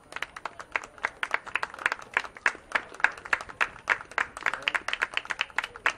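Scattered applause: many people clapping their hands, irregular and overlapping, several claps a second.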